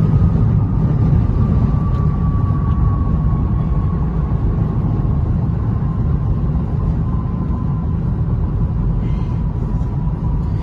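Steady low rumble of a car driving fast down a runway, heard from inside its cabin, with a faint whine slowly falling in pitch.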